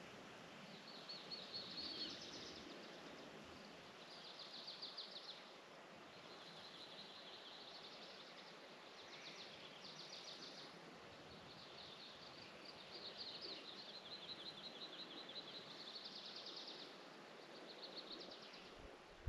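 Faint songbirds trilling: rapid high trills of quick repeated notes, coming again and again with short gaps, over a soft outdoor hiss.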